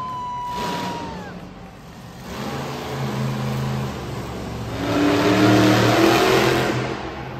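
Monster truck engine revving in an arena, its pitch shifting and growing loudest about five seconds in. A high held whine fades out about a second in.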